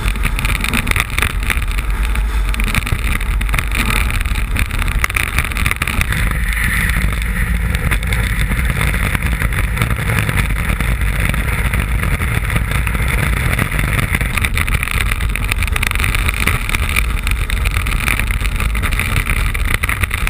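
Iceboat sailing at speed over lake ice: a steady rush of wind buffeting the hull-mounted camera's microphone, with a low rumble and hiss from the runners on the ice.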